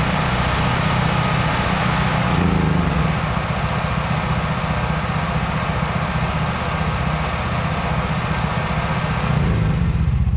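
Portable gasoline generators running together, two open-frame conventional units and an inverter, in a steady engine drone. The sound shifts about two seconds in and again near the end.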